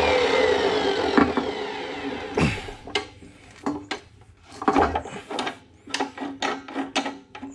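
Abrasive chop saw spinning down after a cut through a metal tarp spool, its whine falling in pitch and fading over the first two seconds. Then a series of light metallic clanks and knocks.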